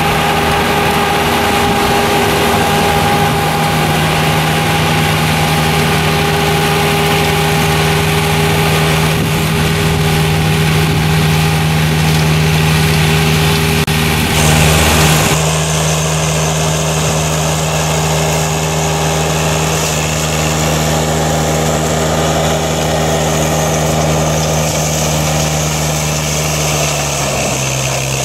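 Berti E-Trail remote-controlled tracked mulcher running steadily as it mows grass, a constant engine hum with the mulching rotor. The sound changes abruptly about halfway through, and the pitch drops slightly near the end.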